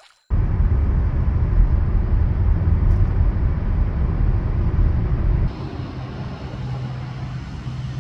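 Road noise inside a car cabin at highway speed: a steady low rumble of tyres and engine that cuts in suddenly at the start. About five and a half seconds in it drops to a quieter steady hum.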